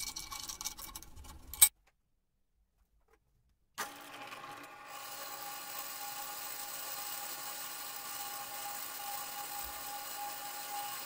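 Clicks and knocks of a steel plate being handled and clamped in a drill-press vise. After a short silent break, a GIB DP15VL drill press runs steadily with a constant tone as its bit cuts through 8 mm steel plate.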